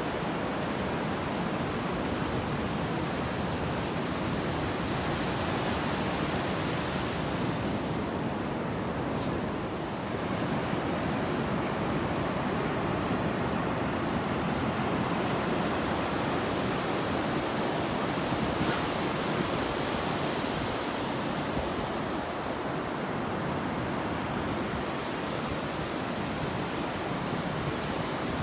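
Ocean surf washing onto a sandy beach in a steady, unbroken rush, with one short high tick about a third of the way through.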